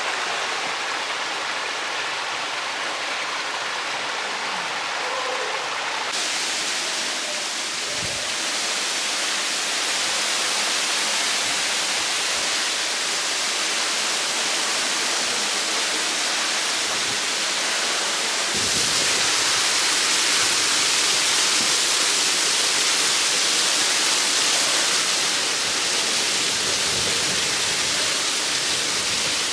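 Ribbon Falls, a thin waterfall, pouring and splashing onto moss-covered rock in a steady rush of falling water. The rush grows fuller about six seconds in and louder again a little past halfway.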